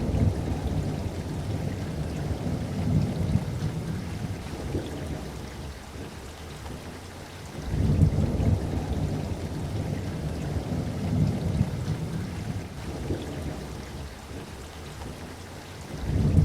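Steady rain with rolling thunder. Deep rumbles swell at the start, again about eight seconds in, and once more near the end, each dying away over several seconds.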